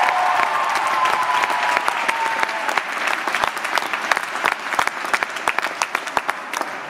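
Theatre audience applauding, with a few held cheers that fade in the first couple of seconds. The applause then gradually thins out into scattered individual claps.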